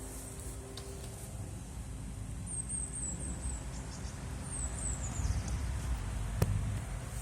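Small bird chirping: two runs of quick, high-pitched notes over a low rumble, with a single sharp click about six seconds in.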